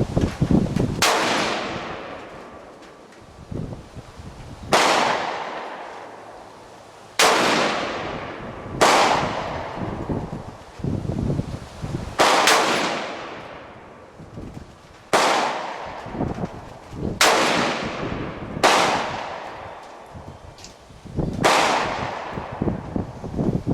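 AR-15 rifle in .223 firing about ten single shots a couple of seconds apart, each sharp crack followed by a long echo dying away.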